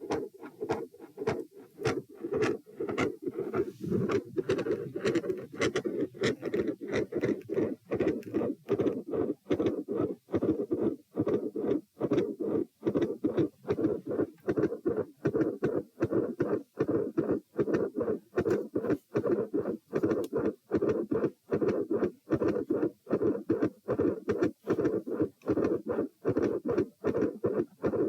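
Heartbeat heard through a stethoscope, with a harsh, noisy heart murmur filling most of each beat and only brief quiet gaps between, repeating in a steady rhythm.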